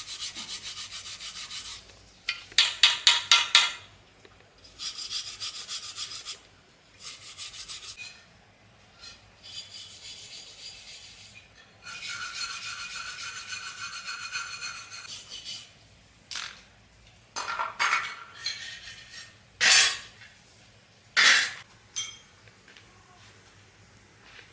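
Rapid rasping, rubbing strokes of hand abrading, such as sanding, filing or brushing a part, in runs of a few seconds with short pauses. Near the end come a few separate, louder single scrapes.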